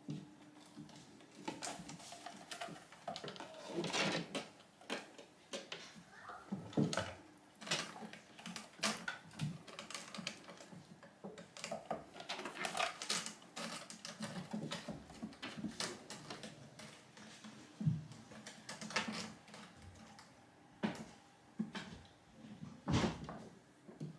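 Cats playing on a carpeted cat tower: irregular scratching and clicking of claws on its fabric platforms and sisal posts, with a few soft thumps of paws and bodies landing.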